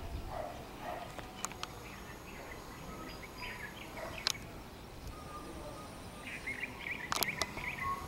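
Outdoor ambience with birds chirping on and off, a longer run of calls near the end, and a few sharp clicks.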